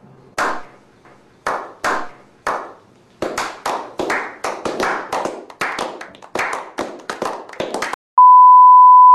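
Slow clap: a few single hand claps spaced out, then from about three seconds in quicker, steadier clapping as more hands join. About eight seconds in it cuts to a steady high test-tone beep of the kind played with colour bars.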